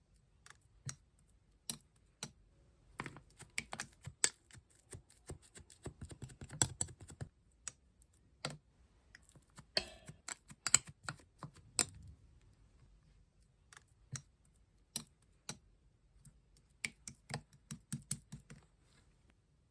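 Slime being squished and poked by hand, giving irregular sharp clicks and pops in bursts with short pauses between.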